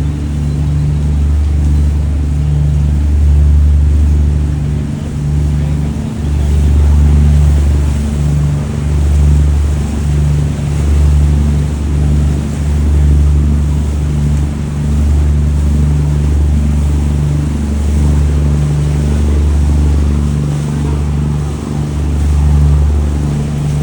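Boat engine running steadily under way, a loud low drone that swells and dips every second or so.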